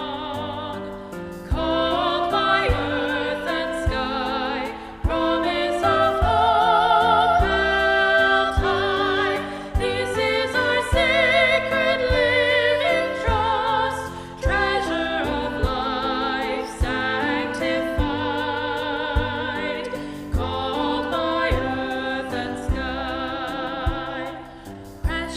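Sung music: voices with vibrato over an instrumental accompaniment, a hymn or anthem.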